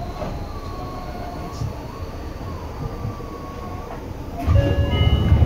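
Running sound of a Seibu 6000 series train heard from above its line breaker: a low rumble with faint, wavering whine tones from its Hitachi GTO inverter. About four and a half seconds in, a louder low rumble sets in together with several steady tones.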